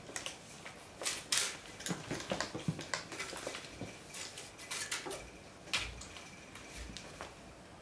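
Irregular light clicks and taps of a Burmese kitten's claws and paws on a tiled floor as it pounces on and bats a plush toy, with a couple of dull thuds near the end.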